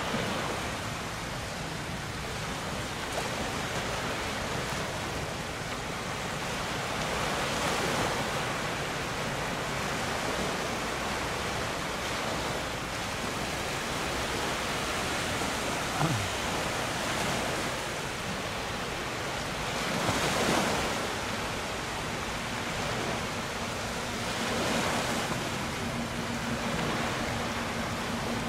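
Sea water rushing and splashing past a sailing boat, with wind on the microphone; the wash swells every few seconds. A short knock comes about halfway through, and a faint steady low hum joins near the end.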